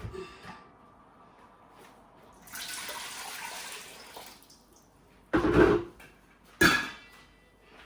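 Kitchen water pouring for about two seconds, then two loud clunks about a second apart.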